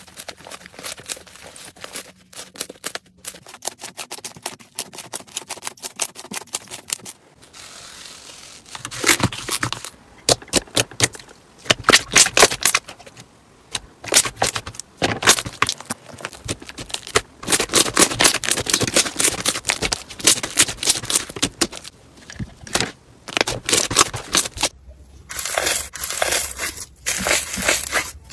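Slime being squeezed and pressed by hand, giving dense runs of crackling clicks and pops in several bouts, quieter at first and louder from about nine seconds in.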